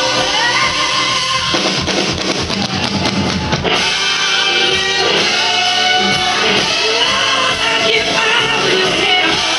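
Live rock band playing loud, heard from the arena seats: drum kit and electric guitars with a woman singing, and a stretch of busy drumming from about two seconds in that stops sharply near four seconds.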